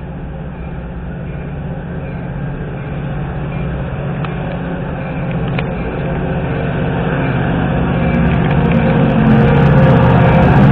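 Metra diesel locomotive pulling a commuter train into the station, its engine running with a steady low drone that grows steadily louder as it approaches.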